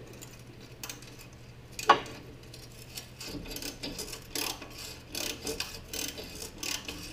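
Hand ratchet on a long extension clicking in short runs as it works an exhaust manifold-to-pipe flange bolt from below. There is one sharp metallic knock a little under two seconds in, and the clicking gets busier from about three seconds on. The mechanic suspects the captured nut behind the flange is turning with the bolt.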